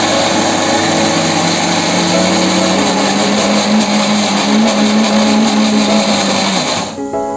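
Electric mixer grinder running, grinding soaked red lentils (masoor dal) into a paste. The motor hum rises in pitch over the first few seconds, then holds steady, and the grinder switches off near the end.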